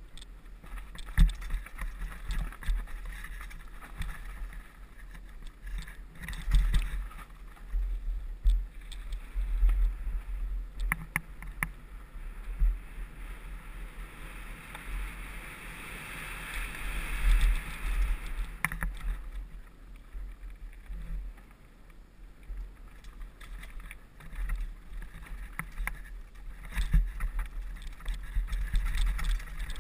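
Hardtail mountain bike riding downhill over dirt, gravel and rocks: tyres rolling on the loose surface, the bike knocking and rattling over bumps, and wind rumbling on the microphone. A hiss swells around the middle, with sharp knocks here and there.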